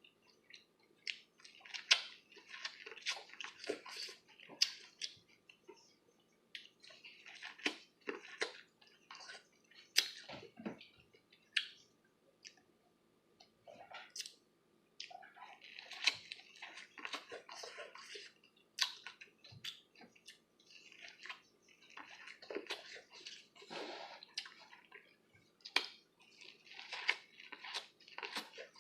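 Close-up chewing and biting of buttered grilled corn on the cob: wet, crackly mouth sounds and sharp clicks coming in clusters every few seconds, with brief pauses between.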